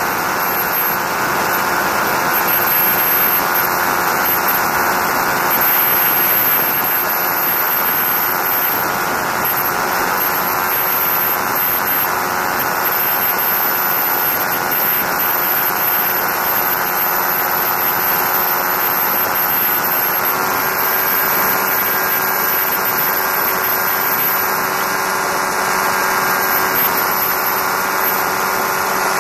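Challenger II ultralight's engine and propeller running steadily in flight, with air rushing past the wing.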